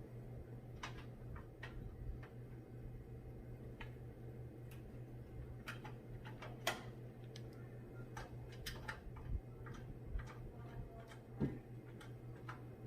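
Irregular light clicks and taps of hands working with computer case parts and screws, a few sharper ones about 7, 9 and 11.5 seconds in, over a steady low hum.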